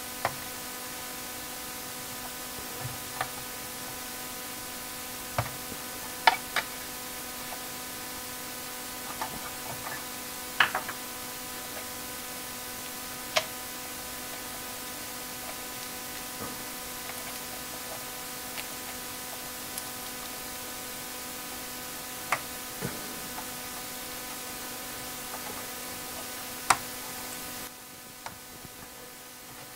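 Scattered sharp clicks and taps, a dozen or so spread a few seconds apart, as chips are worked out of and pressed into sockets on an Apple IIe motherboard, over a steady electrical hum and hiss.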